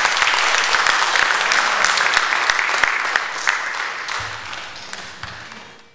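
Congregation applauding, a dense patter of clapping that fades over the last few seconds and stops near the end.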